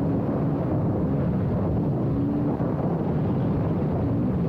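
Suzuki LTR 450 quad's single-cylinder four-stroke engine running at speed on the track, its pitch shifting a little with the throttle, mixed with wind buffeting on the microphone.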